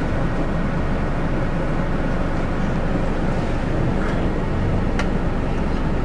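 Steady engine and road noise inside a moving bus, with one sharp click about five seconds in.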